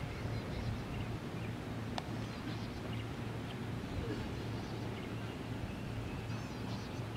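Steady low outdoor rumble with faint, high bird chirps now and then, and a single sharp click about two seconds in.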